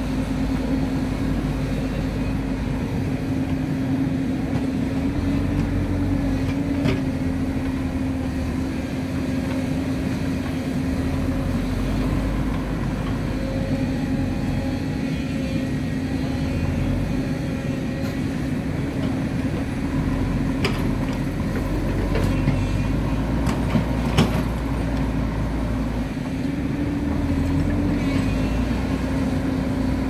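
JCB backhoe loader's diesel engine running steadily as the machine drives and moves dirt with its front loader bucket, its revs rising briefly a couple of times. A few sharp knocks come in the second half, the loudest a little before the end.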